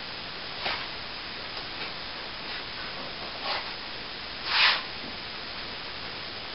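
Plastering trowel swishing across wet plaster in a few short strokes, the last and loudest about four and a half seconds in, over a steady background hiss.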